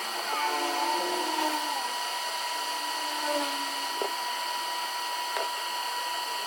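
Hot air rework station blowing steadily with a constant high whine, as used to heat the iPhone 13 Pro's A15 processor off the logic board.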